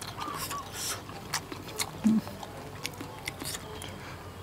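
A man chewing and smacking his lips over a mouthful of steamed turtle meat: scattered soft clicks and smacks. A short, low grunt-like sound about two seconds in is the loudest moment.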